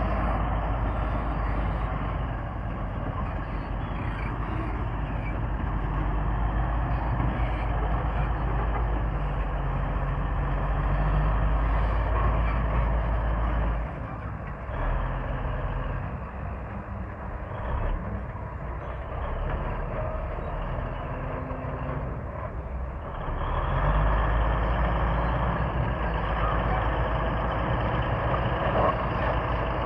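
Komatsu D155A bulldozer's diesel engine running heavily. It eases off to a lower, quieter note about halfway through, then picks up again for the last few seconds.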